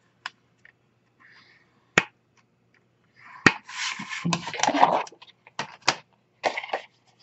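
White card stock being scored with a bone folder in the groove of a plastic scoring board, then slid off the board and handled. A faint scrape of the scoring stroke, a few sharp taps, and about a second and a half of paper rustling past the middle.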